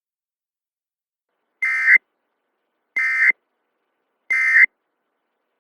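Three short bursts of SAME digital data tones, each about a third of a second long and roughly one and a third seconds apart: the end-of-message code that closes an Emergency Alert System broadcast.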